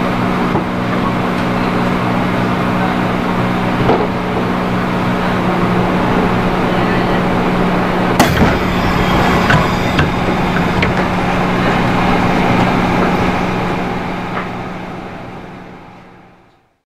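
Running sound recorded aboard a JR East 211 series electric train of the external-fan traction motor type: a steady low hum over a wash of running noise, with a few sharp clicks in the second half, fading out near the end.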